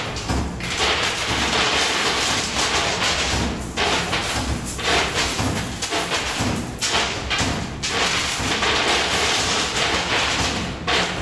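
Din around a coin pusher machine: music playing over a dense clatter with repeated thuds.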